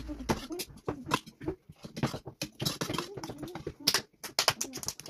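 Exaggerated mouth noises of people pretending to eat: rapid smacking and clicking lips mixed with a wavering hummed 'mmm'.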